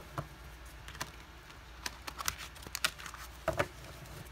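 Tarot cards being shuffled by hand: irregular soft clicks and slaps of the cards, with a louder one about three and a half seconds in.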